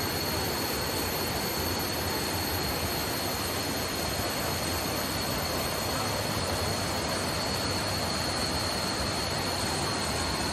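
Rocky river rushing over stones: a steady, even roar of water, with a thin steady high tone above it.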